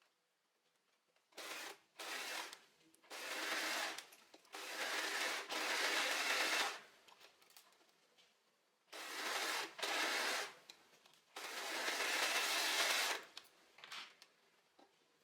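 Sewing machine stitching in short runs of a second or two, stopping and starting repeatedly, with a longer pause about halfway through.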